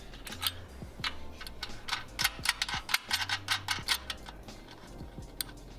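Irregular metallic clicks and ticks of a wrench and nuts being worked onto bolts on a car's rear subframe, several clicks a second in uneven clusters.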